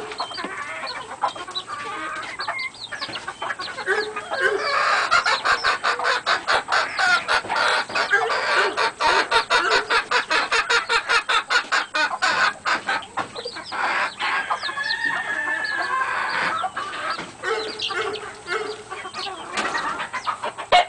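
Several hens clucking and squawking, with a fast, rapid-fire run of clucks through the middle.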